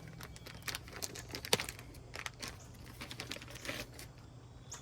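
Irregular small clicks and crinkling from hands handling small grill fitting parts, with a sharper click about one and a half seconds in.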